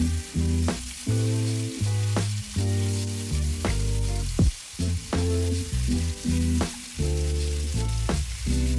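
Seasoned chicken frying in olive oil in a ceramic skillet, with a steady sizzle, under background music with a steady beat.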